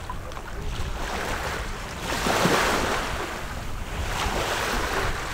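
Ocean surf washing against the shore, with wind rumbling on the microphone; a wave surge swells loudest a little over two seconds in and another builds near the end.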